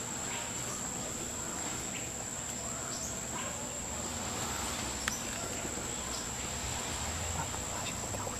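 An insect's steady, high-pitched continuous trill over faint rustling and small ticks, with one sharp click about five seconds in.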